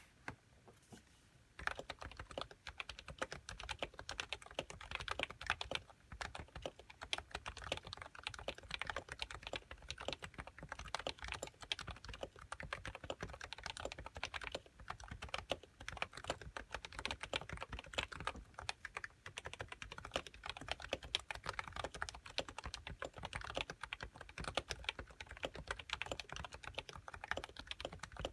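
Typing on a Happy Hacking Keyboard Professional 1 with Topre 45 g electrostatic capacitive rubber-dome switches and HiPro keycaps: fast, continuous keystrokes that start about two seconds in.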